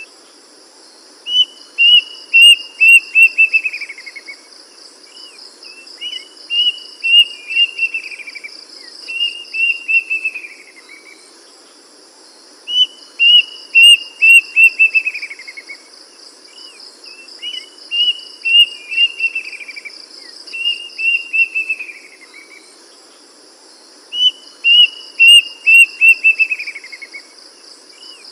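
A songbird singing the same short phrase over and over, a quick run of clear whistled notes that slides down at the end, roughly every three seconds. Underneath, a steady high trill of crickets.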